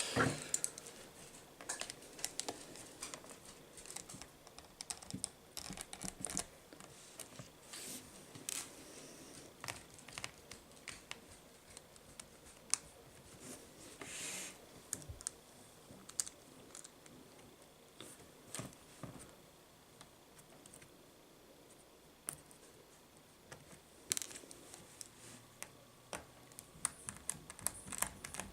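Small screwdriver taking out the screws that hold a laptop's screen panel: faint, irregular clicks and ticks of metal on small screws and plastic, with a few short scrapes.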